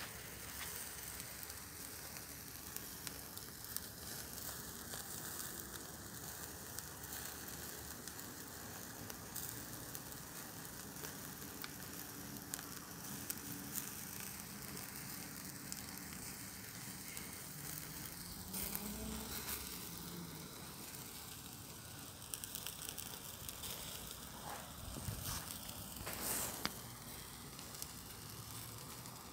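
Boerewors sausage sizzling on a braai grid over hot coals, with the coals crackling and a few sharper pops among the steady hiss.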